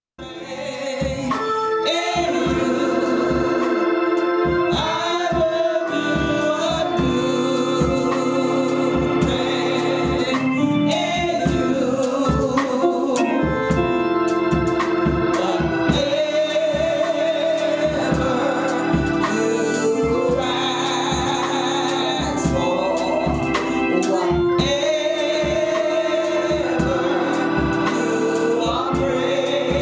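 Gospel music: singing with organ over a steady beat, starting abruptly after silence.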